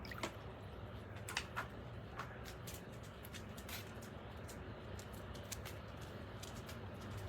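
Immersion water heater warming a basin of water: faint scattered ticks and clicks over a low steady hum.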